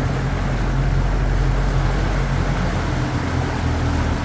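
Tour boat's engine running steadily with a low hum, over the rush of water along the hull. A higher hum comes in about three seconds in.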